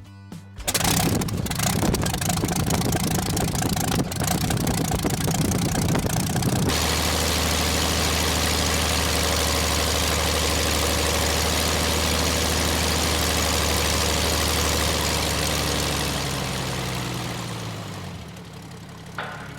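The Great Lakes biplane's Ranger inverted inline-six aero engine starts about a second in and runs unevenly for several seconds. It then settles into a steady idle. Near the end its speed drops and the sound fades away.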